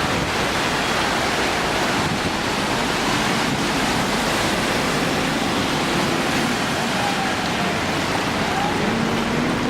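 Floodwater rushing fast down a paved city street, a steady, unbroken sound of running water.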